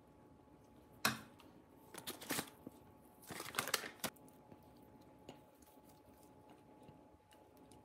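Dry baking ingredients being tipped and scraped into a glass mixing bowl: a sharp tap about a second in, then short rustling, scraping bursts twice more.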